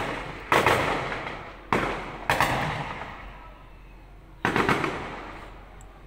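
Gunshots: about five sharp cracks at irregular intervals, the last two or three close together near the end, each ringing out and fading over about a second.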